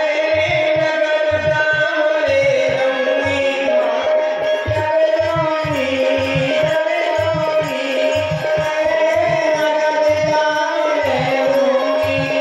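Live Krishna bhajan music: a sustained, slowly bending melody over a continuous rhythm of deep hand-drum strokes.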